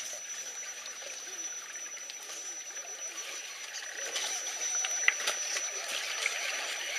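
Shallow rocky creek water running steadily, under a thin steady high whine, with a few light clicks about five seconds in.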